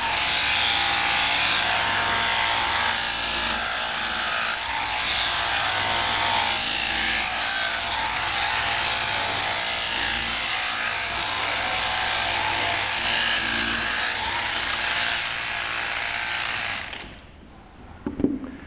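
Sheep-shearing handpiece, driven by a jointed shaft from an overhead shearing machine, running steadily as its comb and cutter take the fleece off a sheep. The buzz cuts off suddenly about a second and a half before the end.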